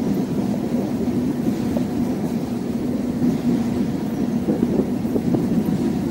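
Freight train of covered hopper cars rolling past, a steady low rumble of steel wheels on rail.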